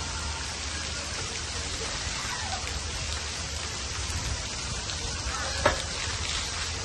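Water spraying from the overhead shower heads of a water-play sculpture and splattering on wet pavement, a steady rain-like hiss. A single sharp click about five and a half seconds in, with faint children's voices in the background.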